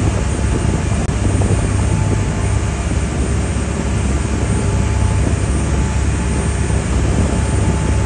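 A water taxi's engines running with a steady low drone under a constant rush of wind and water.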